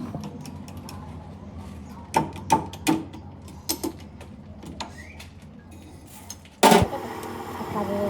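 Several sharp metallic knocks, like tools or parts being handled, then a loud sudden clunk near the end as a workshop machine starts and runs on with a steady hum.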